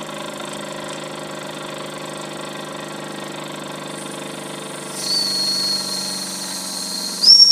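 Wilesco D5 toy steam engine running steadily. About five seconds in, its steam whistle opens with a high steady whistle, then near the end it jumps higher and much louder. Sounding the whistle also lets off boiler pressure.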